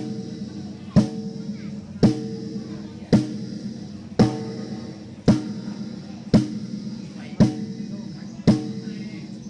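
A single drum of a drum kit struck once about every second at an even pace, each hit ringing briefly, heard through the PA during a soundcheck.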